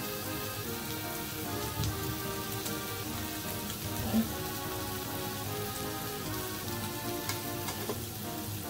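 Sliced meat sizzling on a tabletop gas grill plate: a steady crackling hiss with scattered small pops, under background music.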